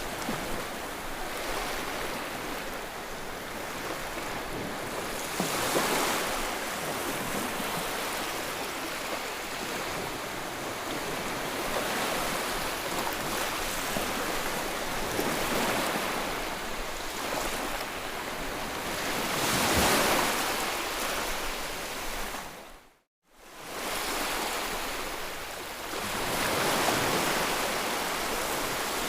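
Steady rushing white noise that swells and ebbs every few seconds like surf. It briefly fades to silence and comes back about three-quarters of the way through.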